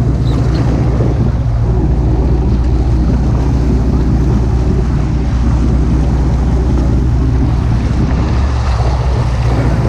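Boat engine running steadily with a low hum, with wind buffeting the microphone.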